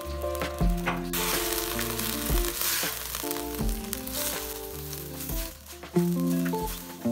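Chicken frying in sauce in a wok, sizzling loudly from about a second in until about five seconds in while a spatula stirs it, over background music.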